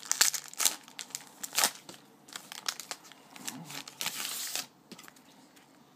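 Wrapper of a football trading-card pack being torn open and crumpled by hand: a run of sharp crinkling crackles, then a dense half-second scrunch a little after four seconds in.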